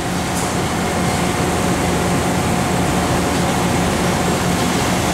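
Steady hum and hiss of a running guidewire centerless grinder, with a constant low drone and a fainter steady mid-pitched whine.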